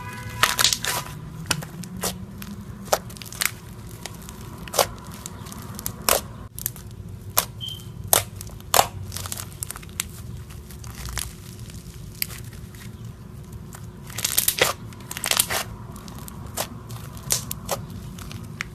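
Slime being squeezed, stretched and pressed by hand: irregular sharp pops and crackles, with quick clusters of them near the start and about fourteen seconds in.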